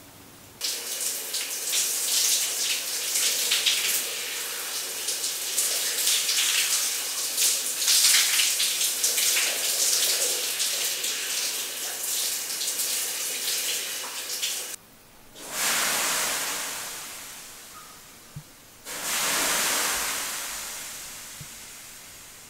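Running water hisses steadily for about fourteen seconds, then stops abruptly. Water is then thrown on hot sauna stones twice, a few seconds apart, each time a sudden loud sizzling hiss that fades away over a few seconds.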